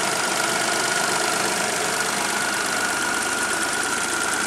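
A 1997 Geo Metro's 1.0-litre Suzuki three-cylinder engine idling steadily on a cold morning, running as it should, with a steady high-pitched tone over the engine noise.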